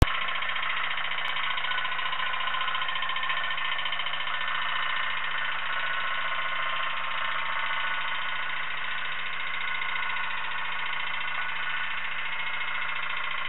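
Tin pop-pop (pon-pon) steam boat running, its candle-heated boiler popping in a steady, rapid, continuous buzz that does not change in rate.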